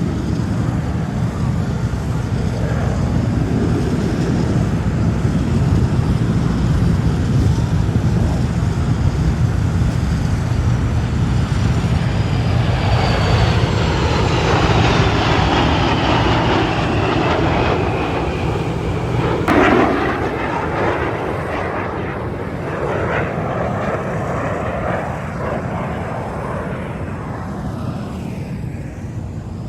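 Jet aircraft flying past at an air display: a steady engine rumble, then a whining tone that falls in pitch as the plane passes, and a brief sharp thump about two-thirds through. The roar then slowly fades.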